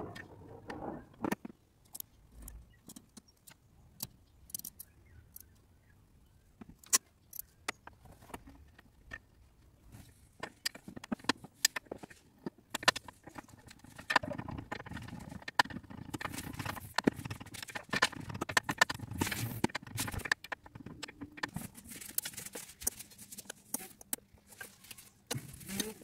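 Irregular metallic clicks, clinks and rattles of hand tools and parts being handled in a car's engine bay, sparse at first and much busier from about ten seconds in.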